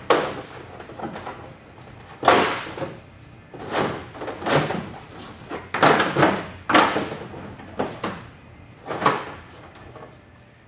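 A plastic wheel well liner being pushed and slid up into the wheel well of a 2015 Ford F-150 by hand: about eight thumps and scraping rubs, roughly one a second, as it seats into place.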